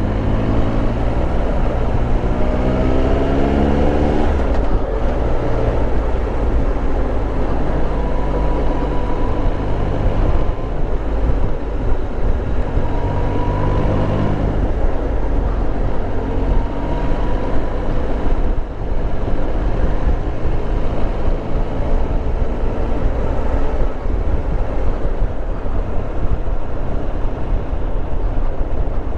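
Triumph Tiger Explorer 1200's three-cylinder engine running as the bike rides along, over a steady low rumble of wind and road noise. The engine note rises as it pulls through the revs about two seconds in, and again near the middle.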